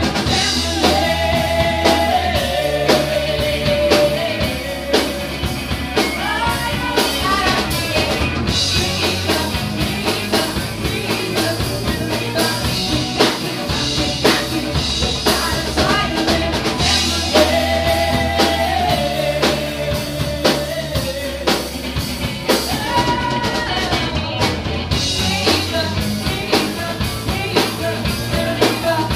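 Live rock band playing: a woman singing over electric guitar, a bass line and a drum kit.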